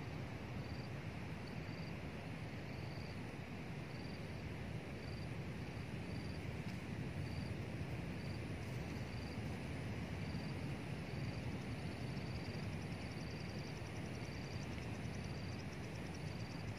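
Insects chirping: a short high chirp repeats evenly a little under twice a second over a steady outdoor rush. About twelve seconds in, a faster, higher pulsing trill joins it.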